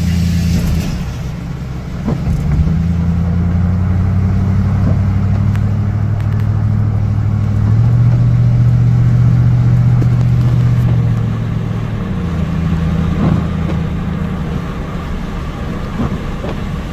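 A truck's engine running as it drives along, its steady hum stepping up and down in pitch several times as it speeds up and eases off, over road noise.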